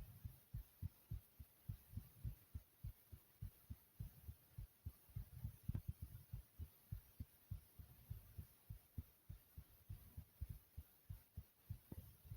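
A person's heartbeat: a steady rhythm of soft, low thumps, several a second.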